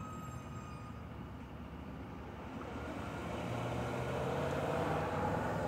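A car driving, heard from inside the cabin: steady low engine and road noise that grows louder about three seconds in, with a faint whine over it. The driver suspects the brakes of making the noise.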